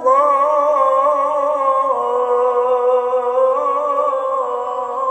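A male Qur'an reciter holds one long melodic note in tilawah style. The note wavers with ornaments and steps down in pitch about two seconds in.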